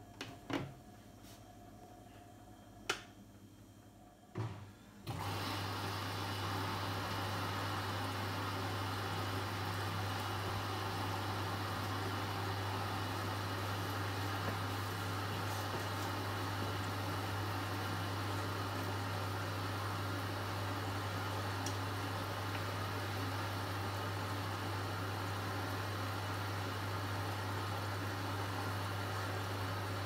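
Bush WMNB712EW washing machine starting its first rinse: a few clicks, then about five seconds in a steady low hum with an even rushing of water starts abruptly and runs on.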